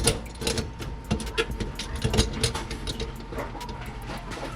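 Irregular clicks and light metallic clinks, roughly every half second, from the garbage disposal's sink-flange mounting hardware being handled and fitted.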